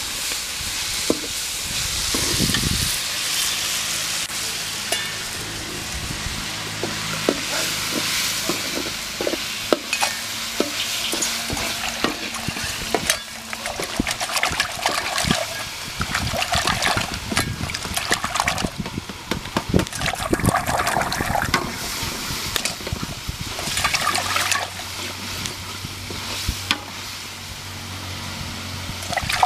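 Water splashing and sloshing in a steel pot as hands rub and rinse pieces of dry fish, with many small irregular splashes and knocks against the pot.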